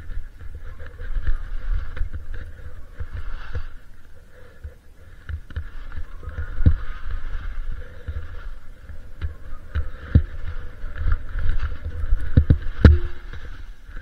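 Skiing down through snow: skis hiss and scrape over the snow under a steady, buffeting wind rumble on the camera microphone. Several sharp knocks are heard from about the middle on, the loudest near the end.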